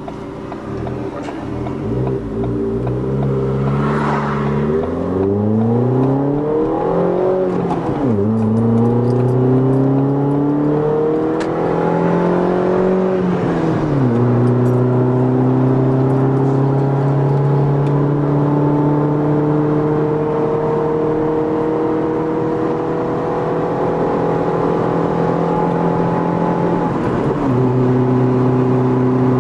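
Ford Fiesta running through a Roncar Coyote Quattro 2Way+ aftermarket exhaust, accelerating through the gears: the engine note climbs, drops at an upshift about eight seconds in and again about fourteen seconds in, then holds a steady drone while cruising, with a brief dip near the end.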